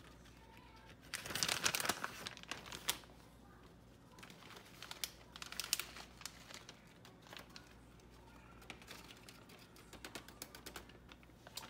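Plastic bag of shredded cheese crinkling as it is tipped and shaken out over a baking pan. There is one loud burst about a second in, then shorter scattered crackles.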